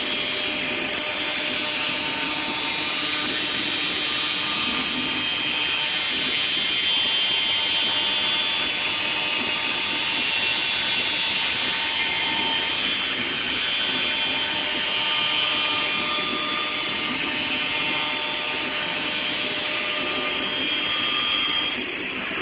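Heian NC-431P CNC router running, one spindle routing a cut into a wooden sheet: a steady whine with several held tones over a rushing noise.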